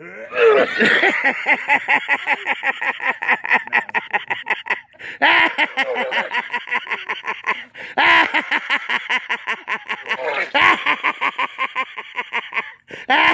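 A person laughing hard and breathlessly in four long bouts. Each bout begins strongly and trails off into a rapid run of short pulses.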